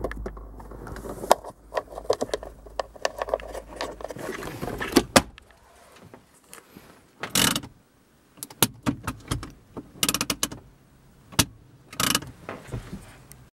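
Irregular clicks, knocks and light rattles of plastic centre-console trim and small loose screws being handled inside the car, with short bursts of clattering about seven, ten and twelve seconds in.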